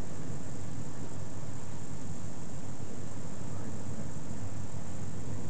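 A steady hiss with a low hum beneath it and no distinct events.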